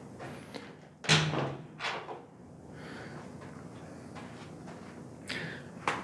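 A dull thump about a second in, then a lighter knock, and two softer knocks near the end.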